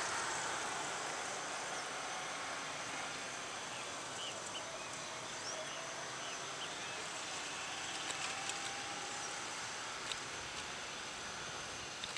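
Cessna Citation M2's twin turbofan engines running at low power as the jet rolls out after landing: a steady hiss with a faint high whine. A few bird chirps come through about four to six seconds in.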